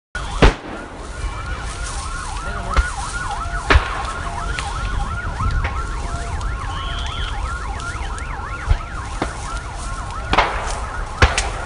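Several emergency sirens sounding at once, each rising and falling quickly several times a second, over a steady low rumble. A few sharp bangs cut through, the loudest about half a second in and others near four, ten and eleven seconds.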